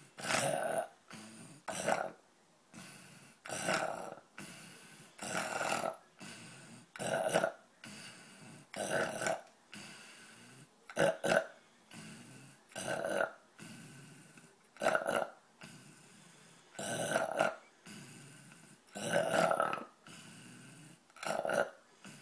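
A man snoring in a steady rhythm, one snore about every two seconds.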